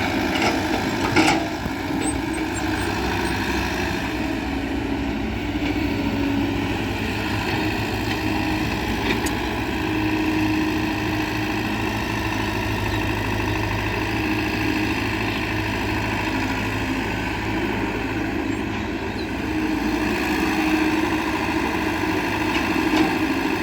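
Heavy diesel engine running steadily at an even speed, with a couple of short knocks about a second in.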